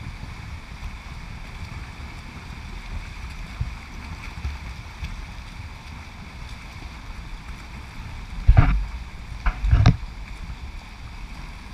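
Indoor swimming pool ambience: a steady rumbling wash of swimmers splashing, with two short loud bursts of splashing or knocking, about eight and a half and ten seconds in.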